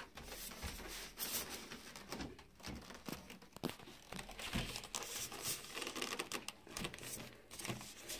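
Plastic bag around a boxed studio monitor crinkling while polystyrene foam end caps rub and scrape against the cardboard box, in irregular rustles.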